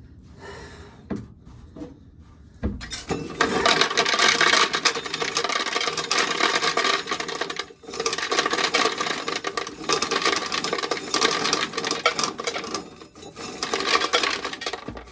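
Corn sheller stripping kernels off ears of corn: a few knocks, then from about three seconds in a dense, loud rattling grind of kernels and cobs, with brief breaks near the middle and near the end as fresh ears are fed in.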